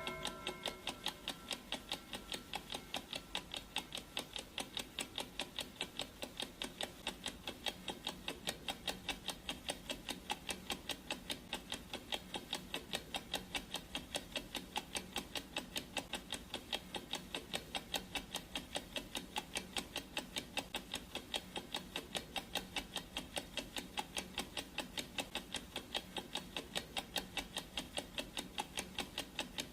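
Clock ticking sound effect: steady, evenly spaced ticks, a few a second, for a countdown timer. At the very start the last of a ringing tone fades out.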